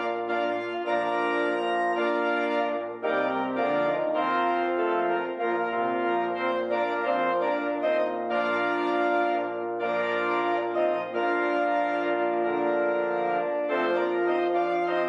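Organ playing a slow hymn-based piece in held chords, the notes sustained without dying away and the harmony moving about every second or two.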